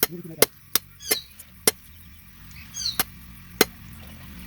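Knife chopping through turkey meat on a cutting board: about six sharp, separate knocks at uneven intervals. Short bird chirps sound twice in the background.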